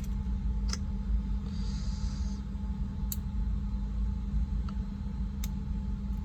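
Steady low hum with a few short, sharp clicks spaced a second or two apart, as a mechanical keyboard switch and its copper contact leaf are handled and pushed with a tool.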